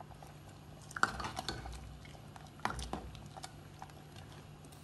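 A metal ladle stirring a curry in a metal pot, clinking lightly against the pot several times, most sharply about a second in and again near three seconds.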